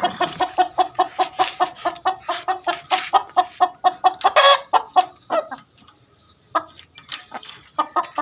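Chickens clucking in a fast, even run of calls, about seven a second, with a louder squawk about four and a half seconds in. The calling breaks off briefly about six seconds in, then starts again.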